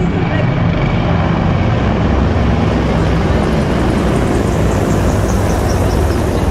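Formation of military helicopters flying low overhead: a loud, steady rotor and engine rumble, with a faint high whine that falls in pitch over the second half as they pass.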